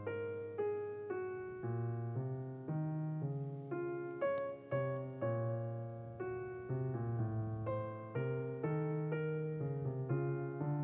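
Background piano music: single notes played one after another over low bass notes, each note fading after it is struck.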